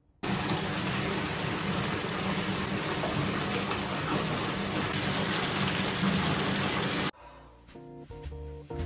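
Steady rush of running water, loud and even, cutting in just after the start and cutting off abruptly about seven seconds in. Light plucked-guitar music follows near the end.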